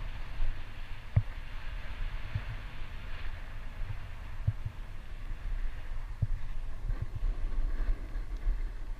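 Wind buffeting the microphone of a skier moving downhill, an uneven low rumble with irregular thumps, over a steady hiss of skis sliding on groomed snow.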